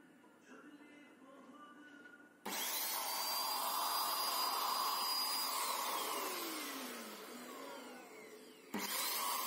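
Electric paint spray machine's 550 W motor switched on about two and a half seconds in, its whine rising quickly, then running steadily with a vacuum-cleaner-like rush. After a few seconds it is switched off and winds down, the whine falling in pitch as it fades. Near the end it starts up again with another rising whine.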